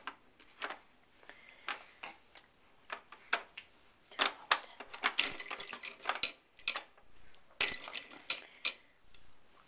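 Plastic clicks and clacks from a baby highchair's toy tray as its knobs are pushed and its parrot toy is batted, with two spells of fast clattering, the second as the parrot toy spins.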